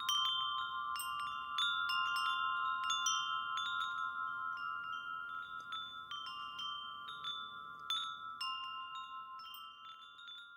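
Wind chimes ringing, struck irregularly many times, each strike's tones held and overlapping, the whole slowly fading out toward the end.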